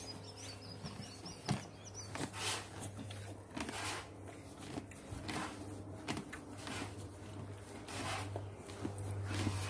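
Horse eating grain feed from a trough: quiet, irregular munching and rustling of the feed, over a faint steady low hum. A few faint bird chirps near the start.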